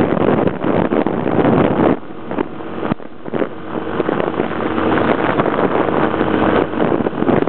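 Wind buffeting the microphone of a moving motorbike, with the motorbike's engine running underneath. The wind noise eases about two seconds in, and a steady engine tone then comes through for a few seconds.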